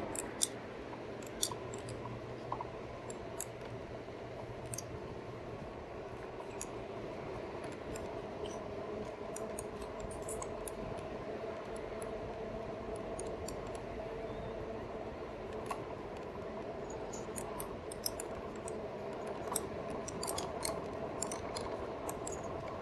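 2018 RadMini e-bike riding along at a steady cruising speed: the rear hub motor hums steadily while the bike and its handlebar mounts give off scattered small clicks and rattles over the pavement.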